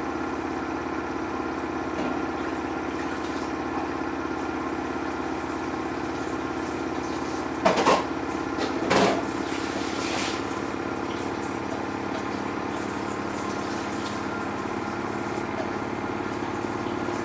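Samsung washing machine running its wash with a steady motor hum, broken about eight and nine seconds in by two loud knocks: the trainers banging against the drum as their dressing-gown wrapping comes loose.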